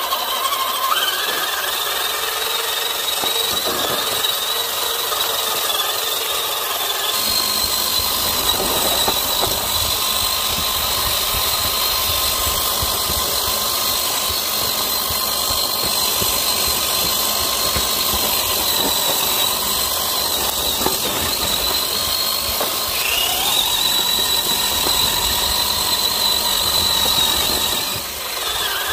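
A large-scale 6x6 RC crawler truck drives along a trail with a continuous high-pitched whine from its electric motor and gears, the pitch shifting with speed. A low rumble joins about a quarter of the way in. Near the end, the whine climbs in pitch as the truck speeds up.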